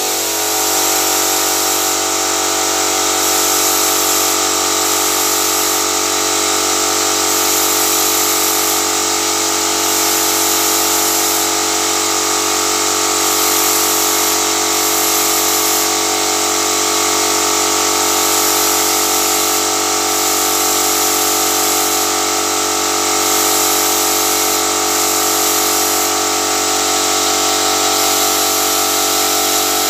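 Paint spray gun in use: a steady machine hum from the air supply, with a continuous hiss of air and paint spraying.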